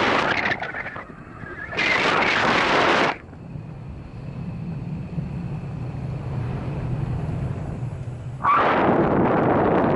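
Wind buffeting the microphone in strong gusts: one in the first second, another from about 2 to 3 s, and a sustained one from about 8.5 s on. A low steady hum lies under the quieter stretch between gusts.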